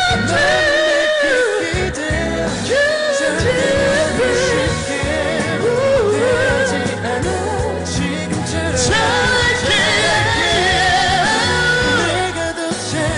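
Live pop ballad: a male singer holds long notes with vibrato over full band accompaniment.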